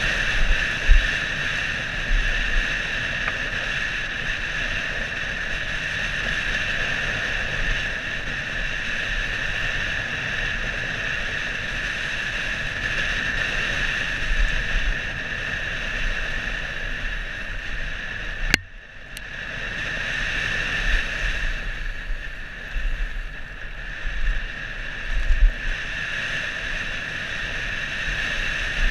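Steady wind noise on the microphone and rolling tyre noise from a downhill mountain bike descending a dirt forest trail, with low thuds as it goes over bumps. A sharp click a little past halfway is followed by a brief dip in the noise before it builds again.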